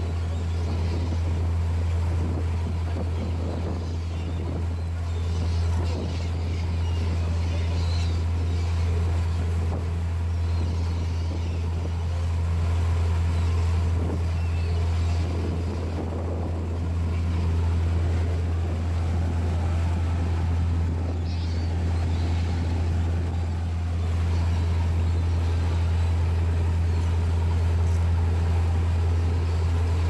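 Tour boat's engine running with a steady low drone, over the rushing churn of its wake behind the stern.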